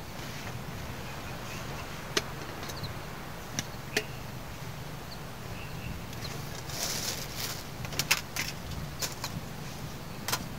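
Camping gear being handled: scattered sharp clicks and knocks, with a rustle about seven seconds in and a quick run of clicks near the end, over a steady low rumble.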